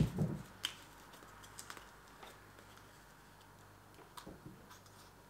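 A few sharp little clicks from a plastic screw cap being twisted on a drink carton, spaced out over quiet room tone.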